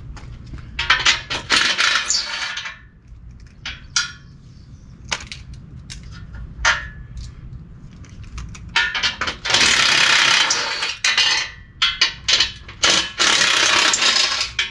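Cordless impact wrench running in three longer bursts and several short ones, spinning already-loosened 14 mm nuts off the side plates of a Toyota Tundra's stock bumper crash bar. Sharp metallic clinks of nuts and tools come between the bursts.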